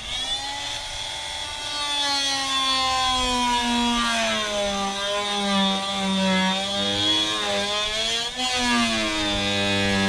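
A power tool's motor running continuously, its pitch wavering up and down as if under changing load, with a brief dip near the end.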